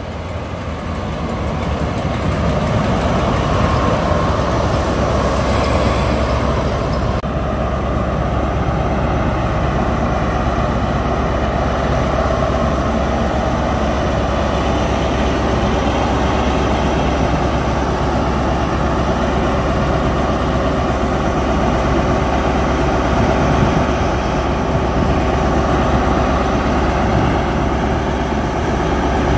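The diesel engine of a Class 43 InterCity 125 power car, running close by. It grows louder over the first few seconds as the power car draws near, then holds a steady drone.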